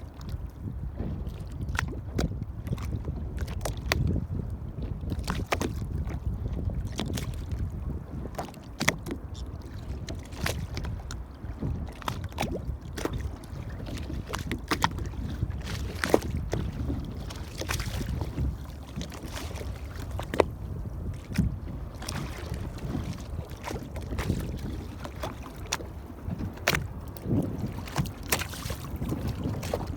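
Water lapping and slapping against the hull of an anchored boat: many irregular sharp slaps over a steady low rumble of wind on the microphone.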